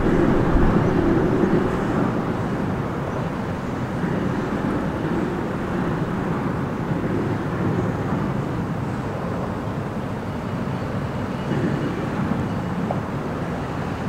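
Steady drone of car traffic crossing a highway bridge overhead, a little louder in the first couple of seconds and then even.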